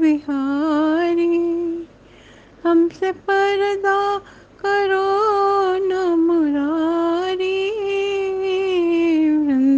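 A woman singing a Hindi devotional bhajan in long, drawn-out held notes, with a short pause about two seconds in.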